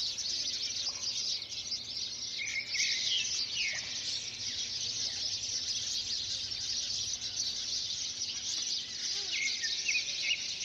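Birds chirping and calling in a dense, steady high-pitched chorus, with a few clearer chirps about three seconds in and again near the end.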